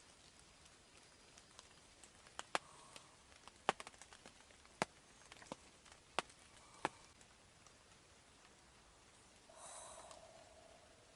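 Rain drips falling irregularly, about a dozen sharp ticks scattered over a few seconds, then a brief, faint call near the end.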